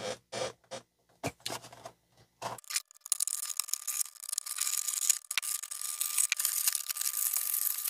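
Carded action figure's plastic blister pack being opened: a few scattered clicks and taps, then about five seconds of continuous crackling and tearing of the plastic and card.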